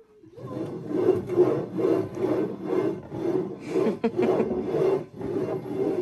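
Two upturned ceramic bowls being shuffled, slid back and forth over a tabletop: a rhythmic rubbing scrape of about two strokes a second, starting about half a second in.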